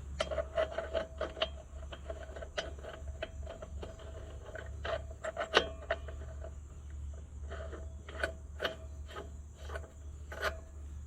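Steel nut and lock washer being run up the pulley shaft: irregular metal clicks and a scraping, ringing squeal as the nut is turned.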